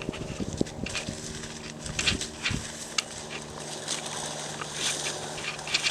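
Irregular rustling and crackling of dry field cover, as someone walks through brush and grass, over a steady low background hum.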